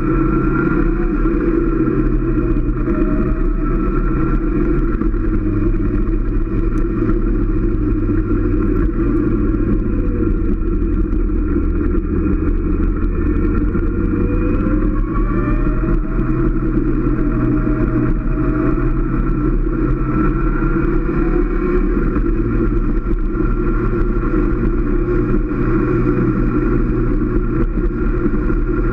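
Motorcycle engine running at cruising speed, heard from the bike itself, its pitch stepping up and down several times as the throttle changes, over a steady rushing noise.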